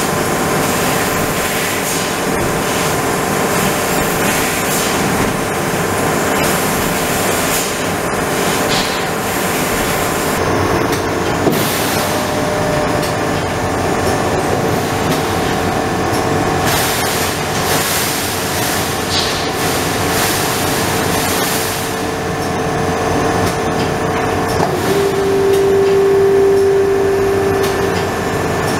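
Trumpf TruMatic L2530 4 kW CO2 laser cutting machine running: a steady mechanical hiss and hum with several steady tones, with the high hiss thinning out about ten seconds in. A louder steady whine comes in about twenty-five seconds in, as the pallet changer shuttles a sheet pallet, and holds to the end.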